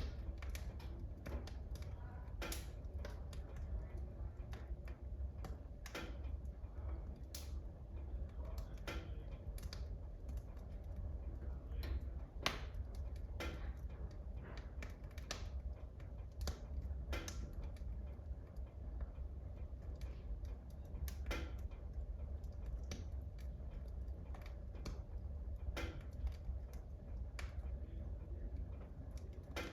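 Logs burning in a wood burner stove, crackling with irregular sharp pops, the loudest about twelve seconds in, over a steady low rumble.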